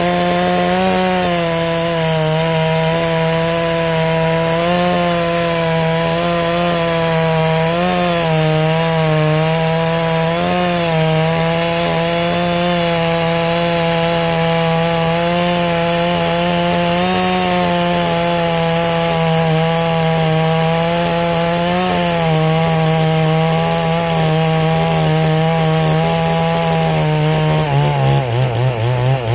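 Two-stroke chainsaw with a tungsten-carbide chain running at high revs while cutting deep through a large hardwood log, the engine note dipping slightly under load. Near the end the pitch drops lower and starts to waver.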